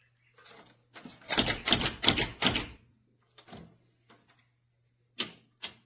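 Plastic cat door latch clicking and rattling as it is handled and fitted to the door. A dense run of quick clacks comes about a second in, followed by a few single clicks.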